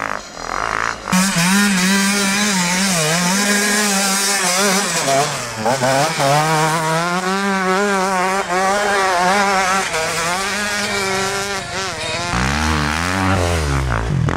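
Motocross bike engine revving hard close by, coming in loud about a second in. Its pitch wavers up and down as the rear wheel spins and slides through deep snow. Near the end a second, lower-pitched engine takes over.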